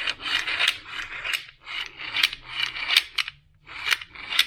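Repeated sharp clicks with scraping between them, a few per second with a short pause past the middle: a BMW M6 V10 throttle actuator being handled and worked by hand, its gears and plate clicking.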